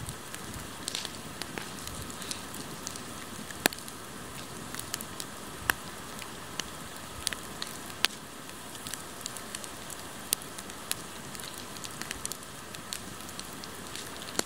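Bonfire of fallen leaves and logs burning: a steady hiss of flames with sharp, irregular crackles and pops.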